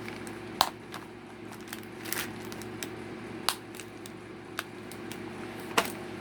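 Small tools and their packaging handled on a table: a few light clicks and rustles, spread a second or two apart, over a steady low electrical hum.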